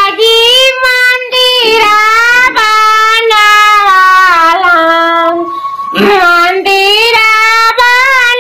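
A man singing in a high, woman-like falsetto through hands cupped over his mouth: a wavering, ornamented folk melody in long held phrases, with a brief pause for breath about six seconds in.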